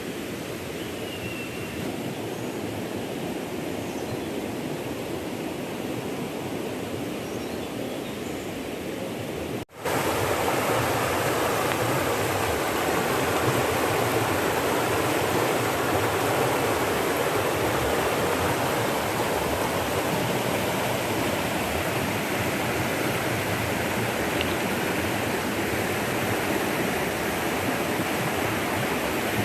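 Hill river water flowing over rocks in a steady rush. About ten seconds in there is a brief break, after which the water is louder.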